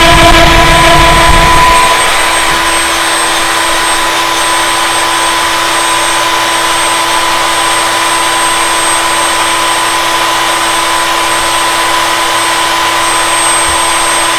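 Wood router on a lathe copying attachment running with a steady high whine. About two seconds in, a heavy low rumble drops away, and the router's whine carries on alone at a slightly lower level.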